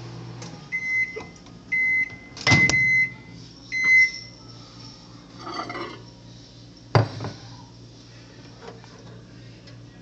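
Microwave oven's running hum cutting off, followed by four short high end-of-cycle beeps about a second apart: the heating cycle is done. Two sharp clicks come about two and a half and seven seconds in.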